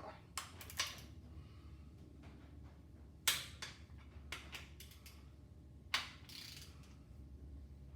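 Torque wrench clicking as the crankshaft main bearing cap bolts are tightened: a handful of sharp clicks spaced a second or more apart, the two loudest about three and six seconds in.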